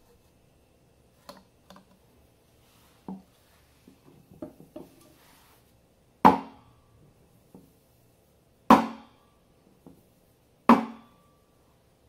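A stainless steel milk pitcher of frothed milk knocked down hard on a wooden table three times, about two seconds apart, each knock leaving a short metallic ring: the usual tap to settle the froth and burst large bubbles before pouring latte art. Before the knocks come a few quieter knocks and clatter as things are handled and set down.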